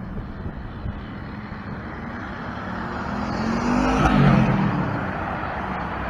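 Semi truck's diesel engine and tyres passing by, growing louder to a peak about four seconds in, then fading.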